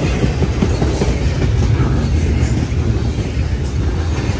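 Double-stack intermodal freight train's container-loaded well cars rolling past: a steady low rumble of steel wheels on rail, with scattered clacks as the wheels pass over the track.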